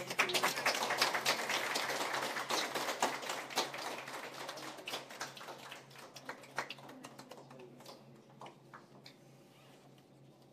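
A small group clapping, dense for the first few seconds, then thinning to scattered claps that die away.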